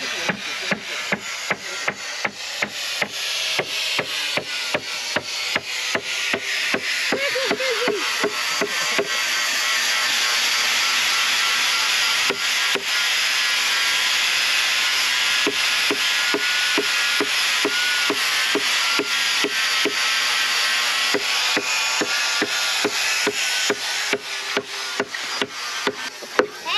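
Rapid, rhythmic hand-scraping strokes on a wooden boat hull, about two to three a second, over a steady rasping noise.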